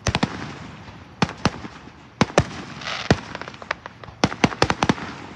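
Fireworks display: a string of sharp bangs and cracks from bursting aerial shells, with a brief hiss about three seconds in and a rapid run of bangs near the end.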